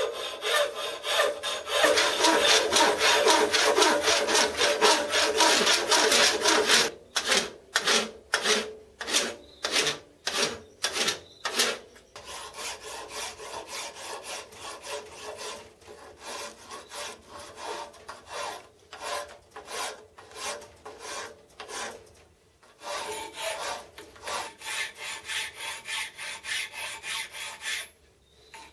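Hand filing on the compound swivel part: a fast, dense run of rasping file strokes, then slower separate strokes about two a second, then lighter, quicker strokes with brief pauses.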